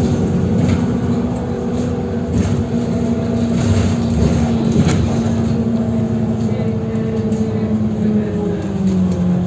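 Vehicle engine running with a steady low drone, its pitch dipping slightly near the end.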